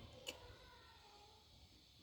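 A single sharp click shortly after the start, a mouth sound from chewing multani mitti (fuller's earth clay), in otherwise near silence.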